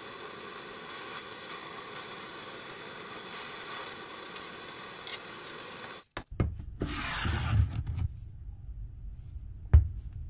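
Propane blowtorch burning with a steady hiss that cuts off abruptly about six seconds in. Then a couple of seconds of rubbing and scraping, and a single sharp knock near the end.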